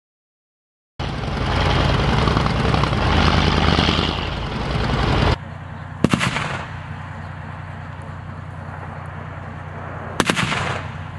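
Tank main gun firing twice, about four seconds apart, each a sharp bang with a short echo, over the steady drone of the tank's engine. Before that, a loud rough noise runs for about four seconds and cuts off suddenly.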